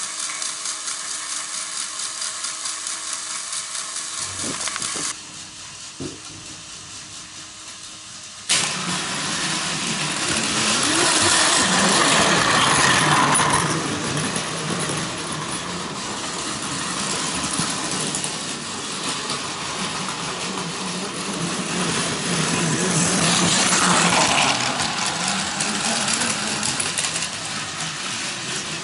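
Plarail battery-powered toy Shinkansen trains running on plastic track: the small motor and gearbox whir with the wheels rattling over the track, a steady whine at first, quieter for a few seconds, then jumping suddenly louder about eight seconds in and swelling twice as a train runs closer.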